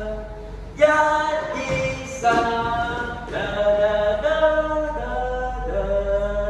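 A children's song sung on "la… la… da-da-da" and "1-2-3 da, da-da-da", the voice holding long notes that step up and down in pitch, with hardly any backing heard.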